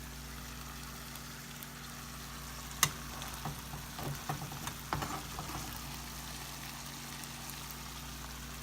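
Chopped roast beef with melted cheese sizzling steadily in a frying pan. A sharp utensil click comes about three seconds in, followed by a run of smaller knocks and scrapes against the pan over the next couple of seconds.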